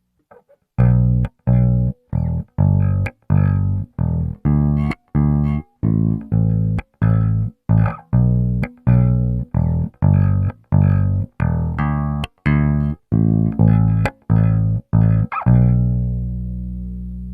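Cort GB64JJ electric bass played solo, its dry signal with no effects, EQ, compressor or limiter. It plays a run of short, clipped notes at about two a second, then a last note near the end that is held and left ringing.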